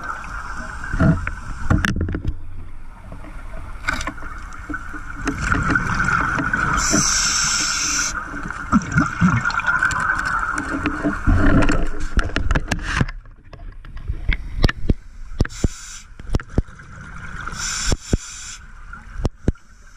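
Scuba regulator breathing heard underwater: a hissing inhalation about seven seconds in and again near the end, with low bubbling exhalations between. Underneath is a steady drone, and many sharp clicks come in the later part.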